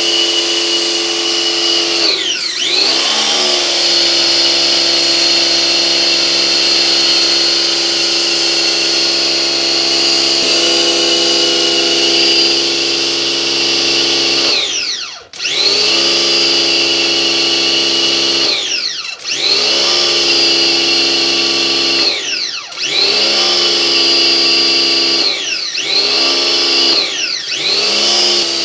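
Pressure washer running with a steady, high motor whine. Its pitch dips briefly and recovers about six times, most of them in the second half.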